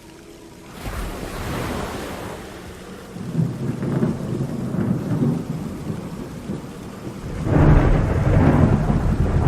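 Thunder rumbling over heavy rain in a storm, coming in about a second in and building to its loudest near the end.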